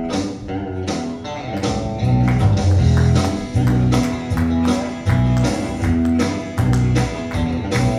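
Live band playing the instrumental intro of a country gospel song: strummed guitar over a steady beat with tambourine, with heavy bass notes coming in about two seconds in.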